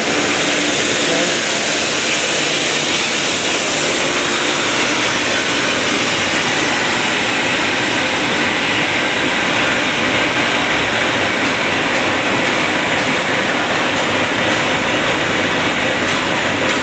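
Piston air compressors and vacuum pump of an oxygen generator plant running together, a loud, steady mechanical din that does not change, while the plant builds oxygen pressure.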